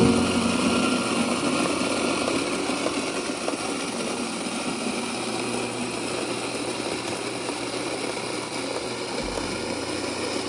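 Rancilio electric coffee grinder running steadily, grinding whole coffee beans.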